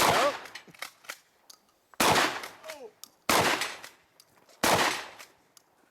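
Pump-action shotgun fired four times, with gaps of about one and a half to two seconds between shots, each shot ringing out after the blast. Brief shouted voice sounds come just after two of the shots.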